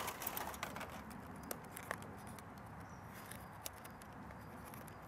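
Aluminium foil crinkling as hands unwrap a cooked foil packet: quiet, scattered crackles, busier in the first couple of seconds and then sparse.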